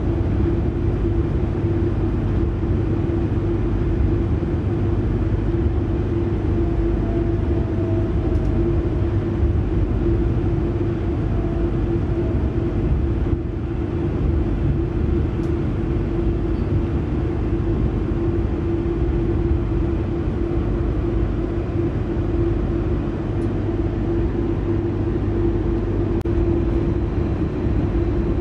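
Running sound heard from inside a moving electric multiple-unit suburban train: a steady low rumble of the wheels on the track with a constant hum over it. Faint brief whines rise above it twice, about a third of the way in.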